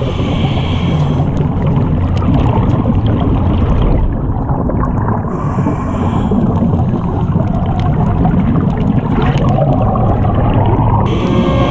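Muffled underwater noise picked up by a diving camera: a steady low rush of water with gurgling. Near the end, background music with held tones comes in.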